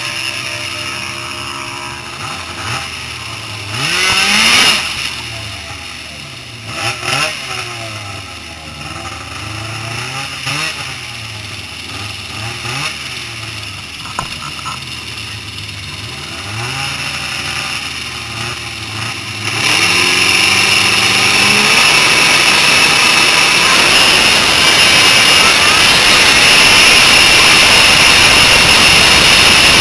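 Snowmobile engine idling unevenly with several quick throttle blips that rise and fall in pitch. About two-thirds in it launches at full throttle, and a loud steady engine note and rushing noise hold to the end.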